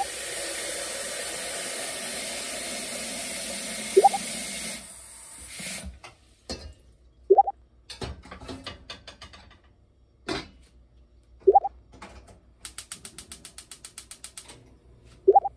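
An edited-in pop sound effect, a short rising tone, plays five times about four seconds apart as ingredient pictures pop onto the screen. A steady hiss runs under the first few seconds, and a quick run of clicks, about ten a second, comes near the end.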